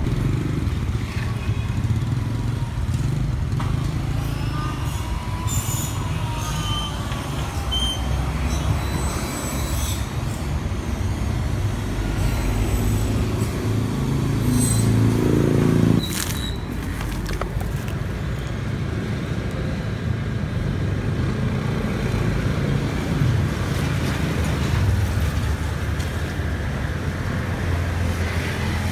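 Street traffic noise: a steady low rumble of vehicles, with one growing louder about halfway through and then cutting off suddenly.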